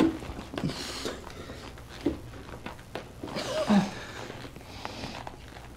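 Arm-wrestling match played back from a 45 rpm record: scattered knocks and shuffling in a small room, with a short strained vocal sound a little past halfway.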